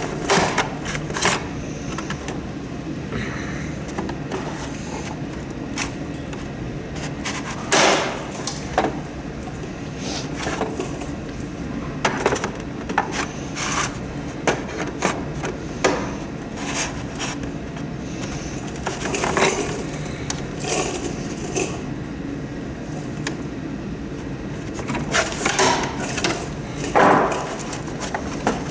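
Hand tools knocking, clicking and scraping against the parts of a humidifier being taken apart, in irregular bursts, with louder clusters of knocks about eight seconds in and near the end.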